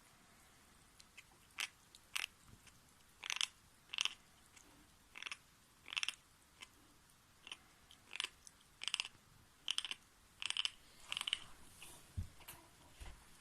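A kitten grinding and scraping its teeth as it chews soft chicken soufflé: about a dozen short, sharp, gritty scrapes, roughly one every two-thirds of a second. A vet check found nothing wrong.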